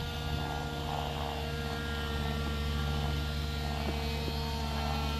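Steady drone of a model airplane engine, holding one pitch, over a low rumble.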